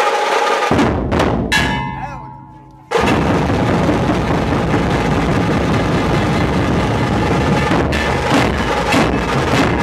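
Nashik dhol drums played by a group: a short burst of beats just under a second in fades out, leaving a couple of ringing tones. About three seconds in the full group comes back in together and keeps up a loud, steady rhythm.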